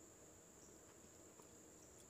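Near silence: faint background ambience with a steady, high-pitched hiss-like tone held throughout, and one or two tiny ticks.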